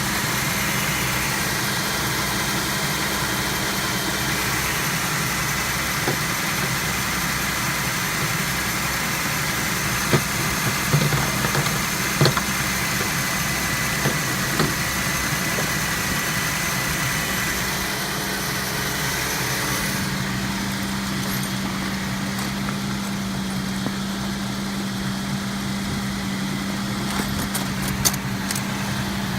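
2004 Chevy Venture's 3.4-litre V6 idling steadily while it warms up after a heater hose replacement, with a few light clicks about halfway through and again near the end.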